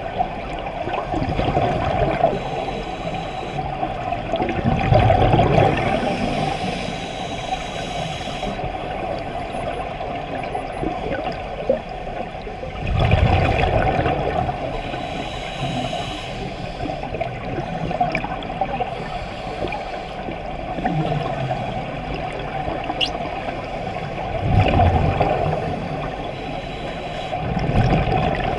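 Scuba diver's exhaled bubbles rushing from the regulator, heard underwater: about four loud bubbling rushes a few seconds apart over a steady underwater hiss.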